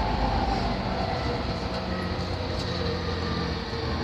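Steady running noise inside a JR Yamanote Line E231-500 series commuter train car in motion: an even rumble of wheels on the rails with a faint steady tone above it.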